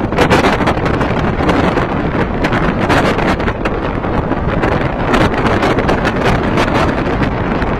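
Typhoon-force wind gusting hard and buffeting the microphone with loud rumbling blasts, over a steady roar of wind through trees.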